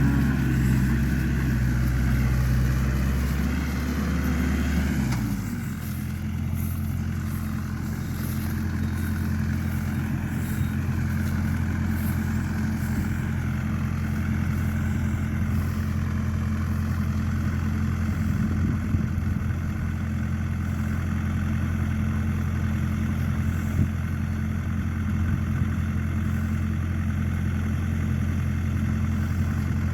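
A motor engine running steadily. About five seconds in its speed drops, and it settles to a lower, even running speed.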